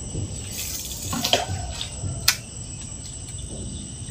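Insects chirping steadily in high, thin tones, with a rustling burst of noise about half a second to a second and a half in and a single sharp click just after two seconds, the loudest sound.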